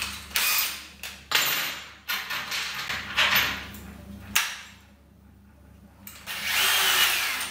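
Handling noise: a string of sharp clicks, knocks and rattles from tools and small screws being picked up. Near the end comes a longer rasping stretch as the keyless chuck of a cordless drill is twisted by hand.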